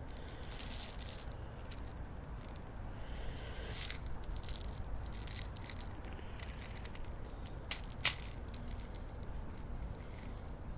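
BBs rattling and small clicks as a BB pistol's magazine is loaded by hand, with one sharper click about eight seconds in.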